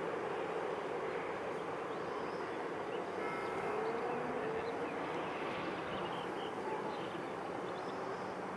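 Steady rumble of a passenger train's coaches rolling over the rails of a viaduct, hauled by an SBB Crocodile electric locomotive, with a faint rising tone about three seconds in.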